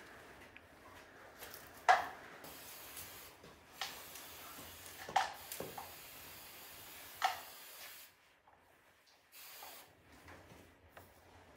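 Aerosol can of hairspray spraying onto dried grass plumes: a steady hiss lasting several seconds that stops about eight seconds in, then a short burst near the end. A few sharp taps stand out, the loudest about two seconds in.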